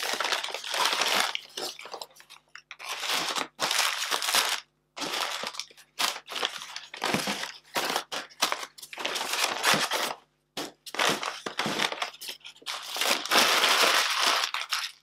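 Brown paper takeaway bags rustling and crinkling as hands rummage inside them and crumple them, in irregular bursts of a second or so with short pauses between.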